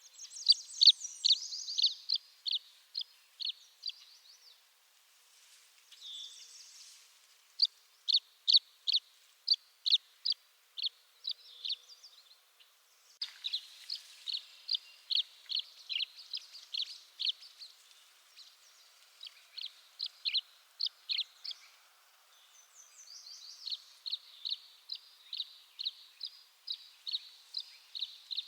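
Tree swallow singing: bouts of short, high chirps repeated about two to three a second, with brief pauses between bouts.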